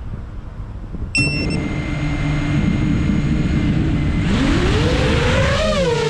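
FPV quadcopter motors: about a second in they start spinning with a steady whine, and from about four seconds their pitch rises and swings up and down as the drone throttles up and takes off.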